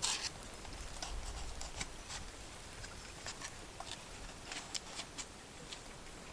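Handling noise from unboxing: a short rustle at the start, then irregular light clicks and ticks as small plastic and paper items are picked up and set down.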